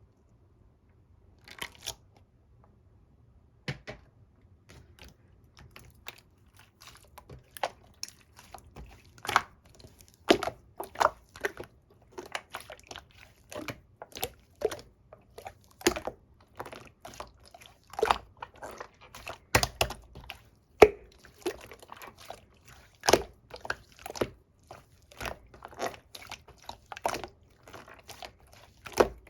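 Jiggly pudding-type slime being squished and poked by hand, giving irregular wet pops and clicks, one to three a second, starting after a short pause and coming more often later on.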